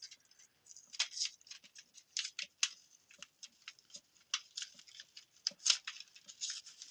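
Scissors cutting open a carded plastic toy package: a string of irregular snips and crinkles.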